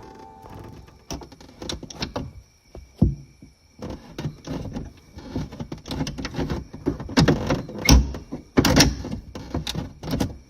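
Classic VW bus door latch and handle being worked over and over: a string of irregular metal clicks and clunks, heavier knocks in the second half. The stiff latch has just been lubricated with WD-40.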